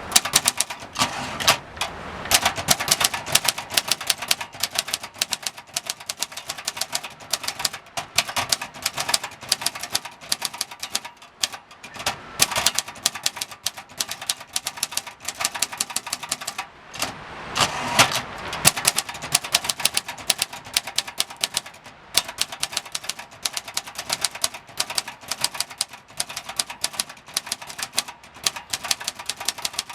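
Typing on a 1969 Brillant Junior portable manual typewriter: a steady run of sharp, uneven key-and-typebar strikes with short pauses between bursts. The machine's mechanism is worn out.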